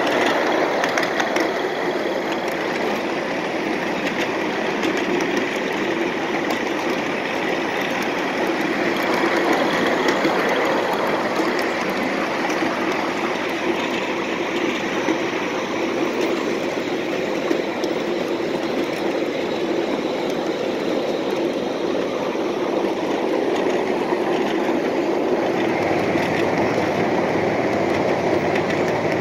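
Ride-on 7 1/2 inch gauge miniature train running along its track: a steady rumble of the wheels on the rails, with faint clicks scattered through it.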